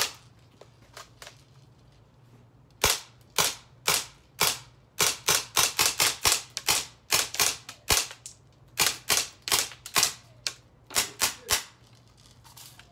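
Umarex Steel Force CO2 BB gun firing steel BBs: one sharp pop at the start, then about two dozen pops in quick succession from about three seconds in, coming fastest, about three a second, in the middle.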